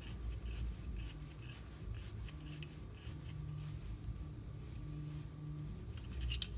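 Faint rubbing and small clicks of a hex key turning a bolt into 3D-printed plastic carriage parts, with a couple of sharper clicks near the end.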